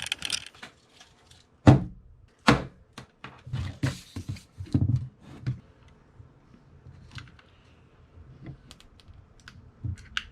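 Close handling noise from a camera being worked on by hand: irregular clicks, taps and knocks, with two sharp knocks about two seconds in and a busy cluster in the middle, thinning to scattered ticks later.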